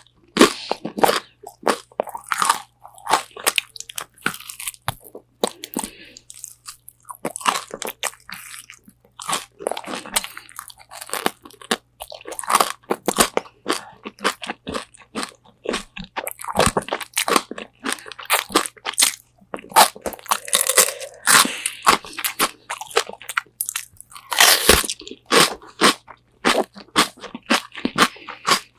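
Close-up crunching and chewing of crispy double-fried Korean chicken wings: irregular sharp crackles of the coating breaking between the teeth, with a quieter pause around six to eight seconds in.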